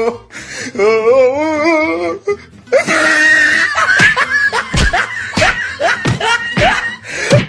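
Comedy background music with a wavering high voice, then, from about three seconds in, a quick run of sharp slap-like hits as several people pile on and hit someone, with laughter.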